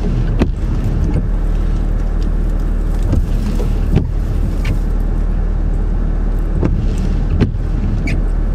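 Steady low hum of a car's idling engine and running heater heard inside the cabin, with a few short clicks and rustles scattered through it.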